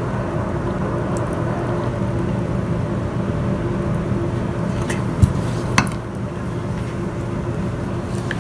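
Two sharp knocks about five and six seconds in as a soldering iron and a reel of solder are set down on the wooden board, over a steady low background hum.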